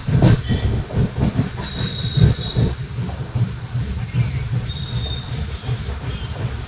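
Passenger train coaches running on the rails: a steady low rumble with irregular wheel knocks, and a thin high wheel squeal twice, about two seconds in and again about five seconds in.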